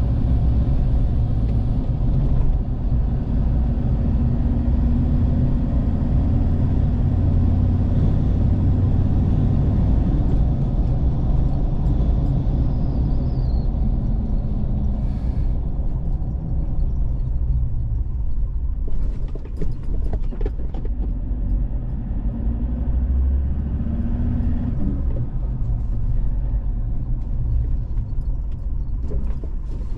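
Road vehicle travelling, heard from on board: a steady low rumble of engine and road noise, with a few brief knocks about two thirds of the way through and near the end.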